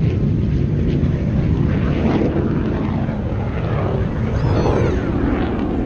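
Loud, steady aircraft engine noise, with a faint falling tone near the end.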